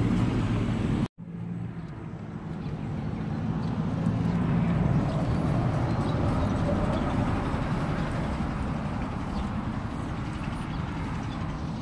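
Road traffic noise from passing vehicles, a steady hum that swells over a few seconds and then slowly eases. The sound cuts out for a moment about a second in.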